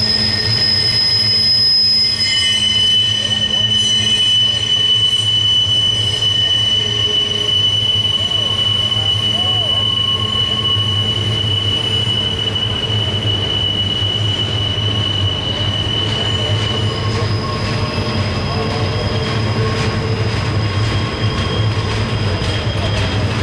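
Double-stack intermodal well cars rolling slowly through a sharp curve, their wheel flanges squealing against the rail in long steady high tones over a low rumble of wheels and trucks. The squeal shifts to a lower pitch about two seconds in and back up to a higher one after about seventeen seconds.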